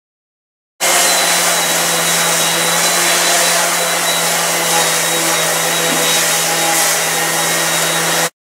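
Random orbital sander running steadily while sanding the metal axle housing: a constant motor hum under a hiss. It starts abruptly about a second in and cuts off abruptly near the end.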